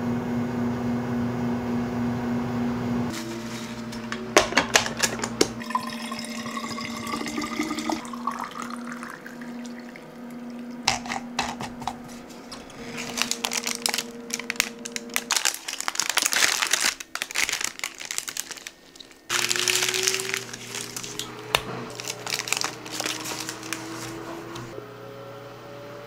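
Water running from a tap into containers, its pitch rising as each one fills. A steady electrical appliance hum runs underneath at the start, stops about five seconds in, and returns later.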